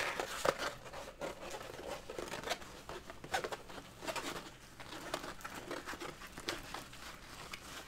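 Crinkling and crackling of a tightly rolled, plastic-covered diamond painting canvas being rolled the opposite way, with scattered small irregular clicks.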